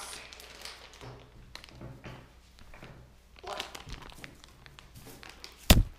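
Faint rustling and taps from a plastic bag of soft-plastic fishing baits being handled, then one loud, sharp knock near the end.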